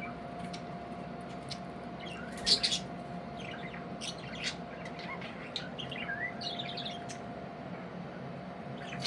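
Budgerigars (parakeets) chirping in short, scattered calls, with a louder cluster about two and a half seconds in.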